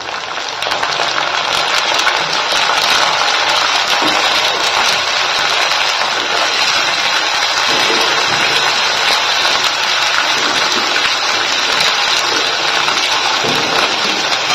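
Wet chopped cauliflower stalks and leaves sizzling in hot oil with onions and green chillies in a kadhai. The sizzle builds over the first second or two, then holds steady with faint crackles.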